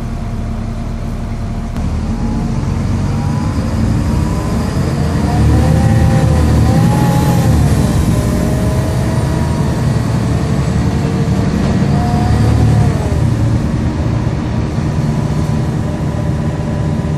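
Volvo B7LA bus's diesel engine pulling away, with a whine that rises and falls as the ZF automatic gearbox changes up, and a high, whiny turbo whistle that climbs and then falls away.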